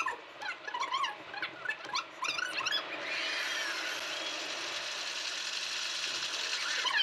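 In-car dashcam audio sped up to about three times normal speed. For the first three seconds it is quick, high, squeaky chirps; from about three seconds in, a steady rush of road noise takes over while the car drives through a roadside tunnel.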